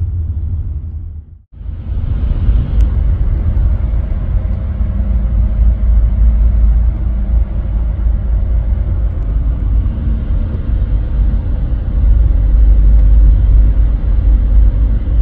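Steady low road rumble of a car driving at highway speed, heard from inside the cabin. The sound cuts out for a moment about a second and a half in, then comes back slightly louder.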